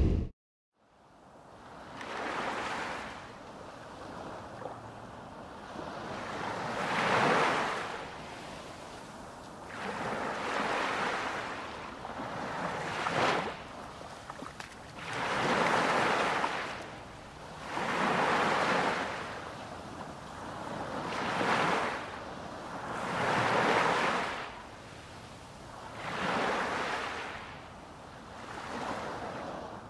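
Small waves lapping and splashing against a harbour quay wall, in regular swells every two to three seconds.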